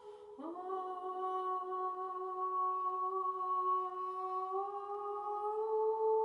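A woman's voice humming one long held tone without words. It slides up into the note at the start, holds steady, then lifts slightly to a higher pitch near the end.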